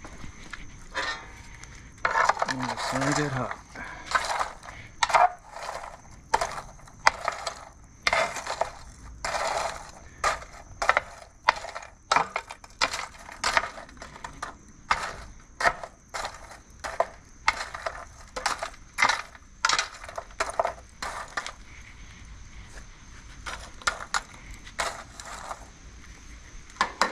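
Charcoal being stirred and spread with a metal poker in a metal grill firebox: irregular clinks, knocks and scrapes of coals against each other and the tray.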